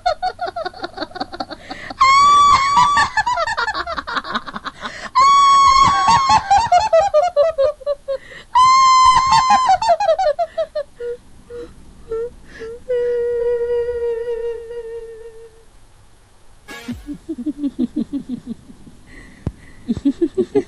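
Eerie staged ghost laughter. Three loud laughs come about three seconds apart, each starting high and sliding down in quick pulsing 'ha-ha-ha' beats. A single held note follows, then a lower chuckling laugh near the end.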